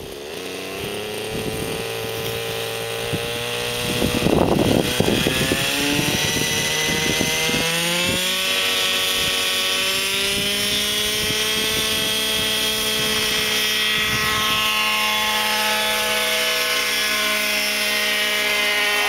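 Radio-controlled Spectra-G model helicopter's engine and rotor spooling up, the pitch rising steadily over about eight seconds with a loud rough burst about four seconds in, then running at a steady high pitch as it flies.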